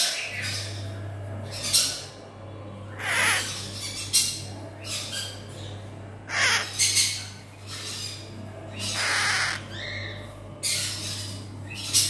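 An African grey parrot chick giving short, raspy begging-type squawks about once a second, a couple of them falling sharply in pitch and one held a little longer.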